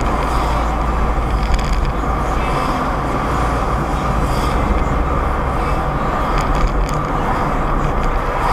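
Steady road and engine noise of a car driving along, heard from inside the cabin through a dash cam: a low rumble with tyre hiss and no change in pace.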